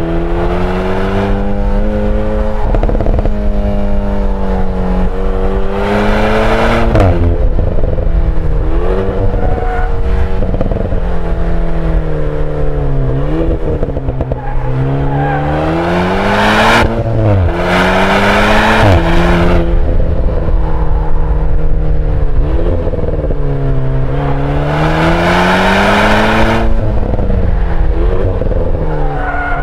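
Alpine A110's mid-mounted 1.8-litre turbocharged four-cylinder engine and exhaust, driven hard: the engine note repeatedly climbs as it revs up and drops back, with several louder surges of exhaust noise.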